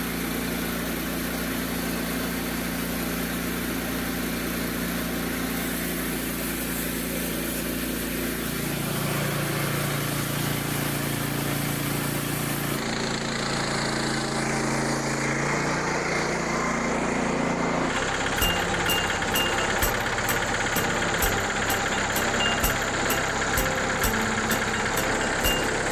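Portable sawmill's small gasoline engine running steadily, its pitch shifting a few times. Through the last third a fast, regular ticking runs along with it.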